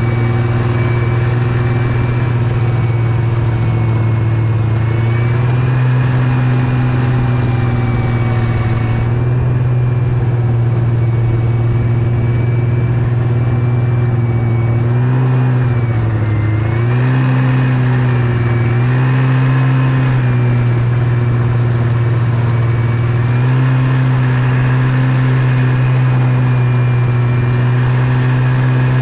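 Yamaha Venture snowmobile engine running steadily under way. Its pitch rises a little a few seconds in, dips briefly about halfway through, then picks back up and holds.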